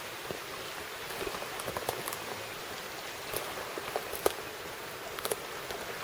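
Steady hiss of rain and a rainforest creek, with scattered sharp clicks and ticks throughout; the loudest comes a little past the middle.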